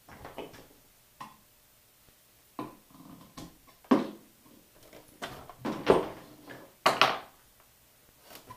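Handling noise: irregular knocks, clunks and rattles as the shotgun-damaged old Dell desktop tower and loose parts around it are moved about, the loudest about four, six and seven seconds in.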